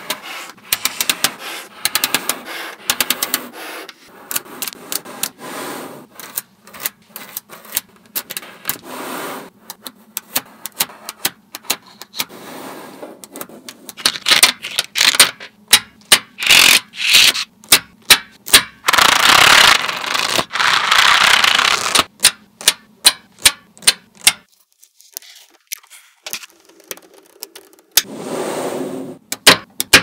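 Small magnetic balls clicking sharply as strips of them snap together, with rattling and scraping as they are slid and pressed into place on a table. A little past halfway comes a few seconds of continuous dense clattering, then a short quieter spell.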